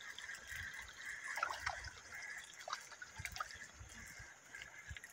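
Small hooked tilapia thrashing at the surface of a pond as it is reeled in, making light, irregular splashes and drips.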